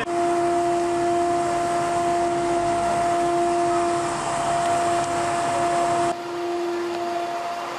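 Steady rushing noise with one steady hum tone on top, dropping abruptly in level about six seconds in while the hum carries on.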